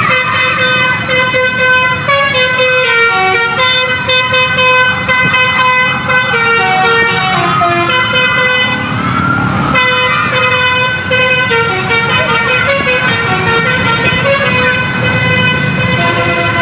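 An Indonesian intercity bus's 'telolet' multi-tone horn (basuri) playing a tune, its notes stepping from pitch to pitch one after another, over the low rumble of the bus.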